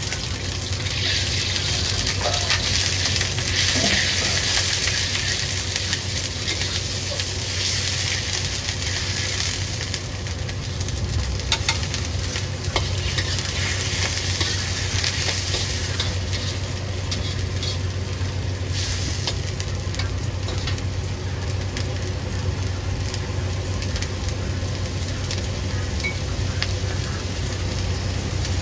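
Shrimp and vegetables in sauce sizzling in a wok, stirred with a metal wok spatula that scrapes and clicks against the pan. The sizzle is strongest over the first ten seconds, with a steady low hum underneath.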